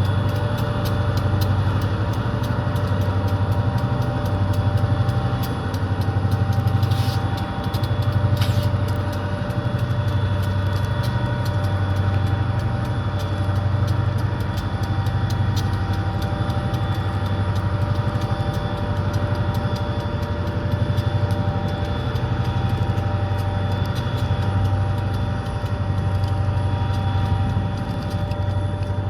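Turbocharged EMD GP-series diesel locomotives working while switching cars: a deep engine throb that swells and eases every second or two, with a steady high turbo whine over it. Two short hisses come about seven and eight and a half seconds in.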